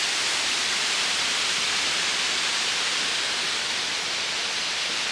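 Waterfall rushing with a steady, even hiss.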